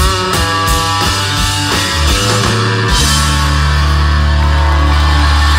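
Live rock band with electric guitars and drum kit playing the closing bars of a song: rhythmic chords and drum hits, then about three seconds in the band lands on a final chord that is held ringing.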